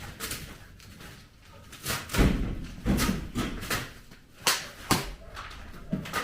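A handful of knocks and bangs, about five, irregularly spaced, the loudest a little over two seconds in.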